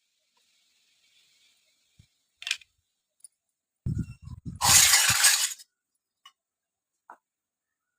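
Small hard toy kitchen pieces clinking and being set down: a sharp tap about two and a half seconds in, a quick run of low knocks about four seconds in, and overlapping it a loud rattle lasting about a second, followed by two faint ticks.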